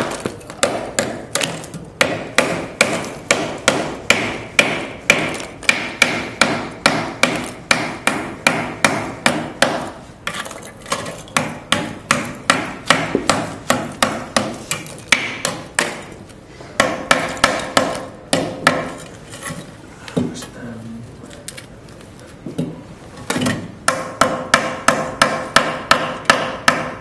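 Hammer striking and breaking away a plaster investment-casting mould from freshly cast metal bicycle lugs, in fast repeated blows about three a second, with a short letup about three quarters of the way through.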